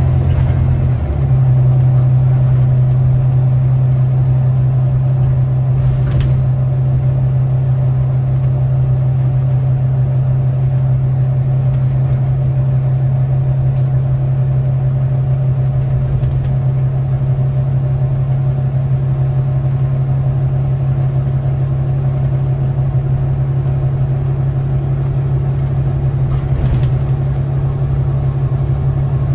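Volvo B9TL double-decker bus's six-cylinder diesel engine heard from the upper deck, a steady low drone as the bus runs along, with a few faint rattles.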